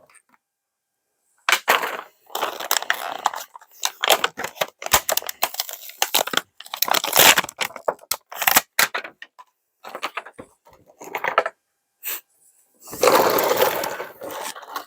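Plastic toy packaging crinkling and tearing as it is opened, with sharp clicks and snaps of hard plastic pieces, coming in irregular bursts with short pauses. A longer stretch of steady crinkling comes near the end.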